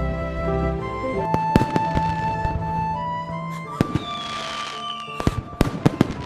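Soft instrumental music with sustained notes, joined by fireworks: single sharp cracks from about a second in, a whistle falling in pitch over a hiss at about four seconds, then a quick string of cracks near the end.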